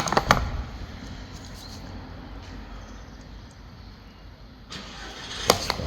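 A few sharp clicks and knocks of spark plugs and hand tools being handled, two close together at the start and another cluster about five seconds in, over a low steady hum.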